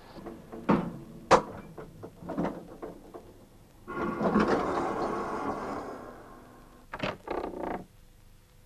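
Wooden door sound effects: a few sharp knocks in the first three seconds, a creak lasting about two seconds from about four seconds in, then a quick run of knocks near the end.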